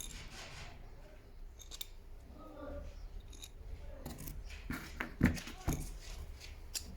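A run of sharp clicks and knocks, like small hard parts being handled, sparse at first and thicker and louder about four to six seconds in.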